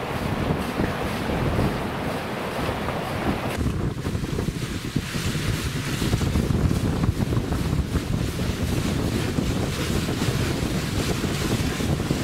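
Steady wind buffeting the microphone over water rushing past a moving boat's hull, heaviest in the low range.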